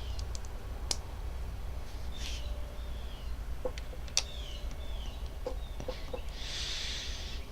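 Plastic LEGO bricks being handled and snapped together, a few sharp clicks, with a bird's short chirps in the background over a low steady hum; a brief rustle near the end.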